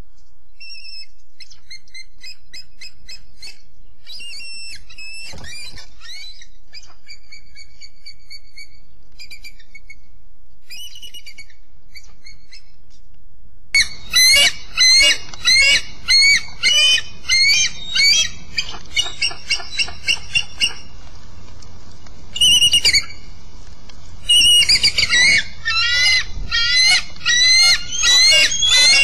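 Bald eagles calling: faint, distant high piping calls at first, then about halfway in loud runs of rapid high-pitched chittering from the eagle on the nest, repeated with short gaps, an alarm at intruding eagles. A steady hiss of wind and nest-cam microphone noise lies underneath.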